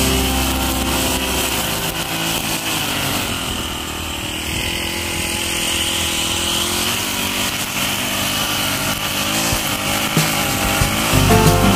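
Backpack brush cutter's small petrol engine running at cutting speed while its nylon-line head cuts tall grass, with a steady high whine. The engine eases off slightly about a third of the way in, then holds steady.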